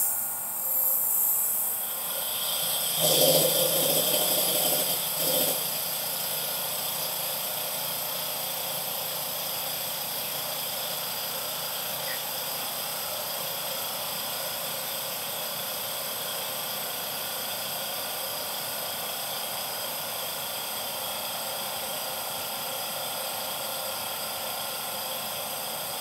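A valve opens on a vacuum pump line and air from the dilution refrigerator's vacuum can rushes in with a sudden hiss, louder for a couple of seconds a few seconds in. The vacuum pump cart then runs steadily with a high whine as it pumps the can down.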